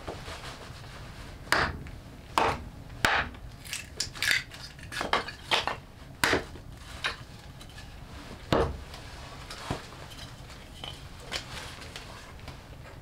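Hatchet chopping wood on a chopping block: a dozen or so sharp chops at irregular intervals.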